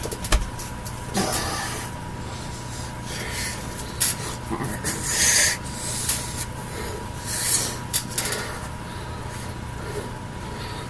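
Breathy exhales and snorts from a person signing, with a few sharp taps and rubs of hands against each other and against clothing. Under it runs a steady electrical hum.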